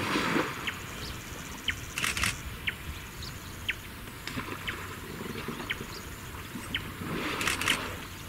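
African elephants in a waterhole blowing water out through their trunks in hissing sprays and splashes: one right at the start, a short one about two seconds in, and a longer one near the end. Faint, brief high chirps sound in between.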